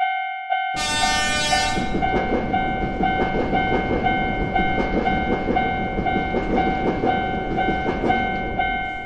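A railroad crossing warning bell ringing steadily about twice a second while a train runs past with a steady rumble. A train horn sounds briefly about a second in.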